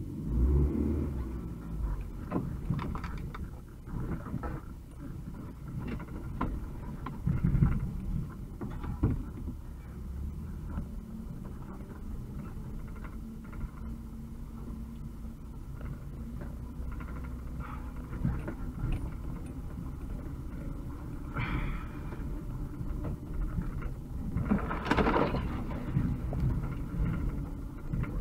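UAZ 2206 van's engine running as it drives over a rough dirt track, with knocks from the bumps in the first ten seconds, then a steadier engine drone. Two louder noises come near the end.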